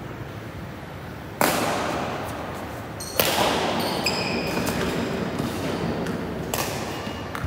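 Badminton rackets striking the shuttlecock: three sharp cracks, each trailing a long echo through the hall. Short high squeaks of court shoes on the court mat sound between the strikes.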